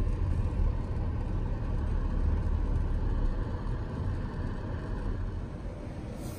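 Car running at low speed, heard from inside the cabin: a steady low engine and tyre rumble that eases off a little toward the end.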